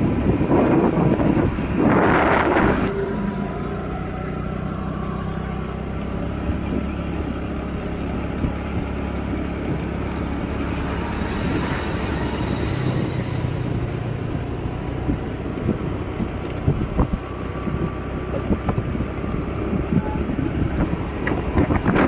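Motorbike engine running steadily while riding, with road and wind noise, louder for the first few seconds; a few short knocks in the second half.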